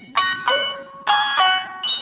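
Effects-processed kids' show intro jingle: a string of bright, bell-like electronic notes, about five in two seconds, each struck and ringing out.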